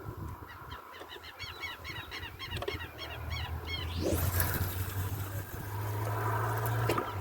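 A bird calling in a rapid series of short, arched notes, about three or four a second, with a rising rush of noise about four seconds in and a low steady hum underneath.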